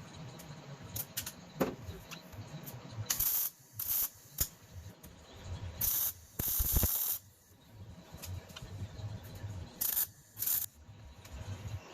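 Hand work on sheet metal for a dash panel: a series of short rasping, hissing bursts, the longest about a second, among scattered clicks and knocks.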